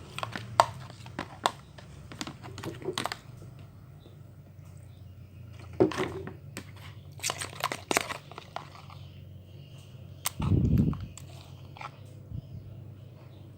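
Homemade glue slime being mixed and handled in a container, with clusters of sharp clicks and crackles and a short low thump about ten and a half seconds in.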